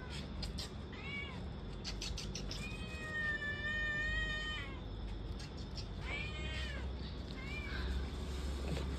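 Cat meowing repeatedly: a few short meows that rise and fall, and one long drawn-out meow about three seconds in.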